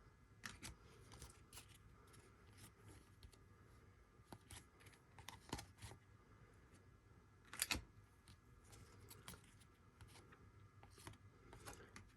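Faint handling of trading cards: cards sliding, rubbing and tapping against one another and being set down, in scattered small clicks and rustles, with one sharper tap a little past halfway.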